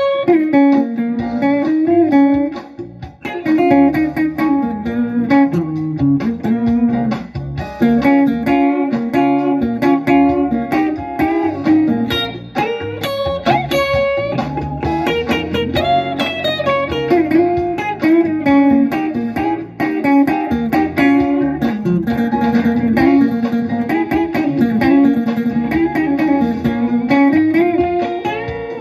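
Electric guitar playing a soul-jazz instrumental, fretted chords alternating with single-note melody lines in a steady groove.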